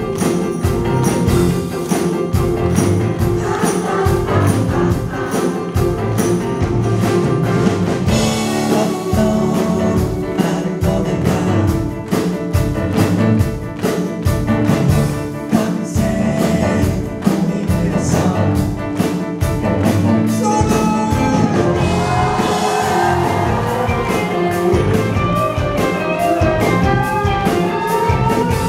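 Live rock band playing: electric guitar, electric bass and a drum kit keeping a steady beat, with a tambourine in time. A melody line rises and falls over the band in the last third.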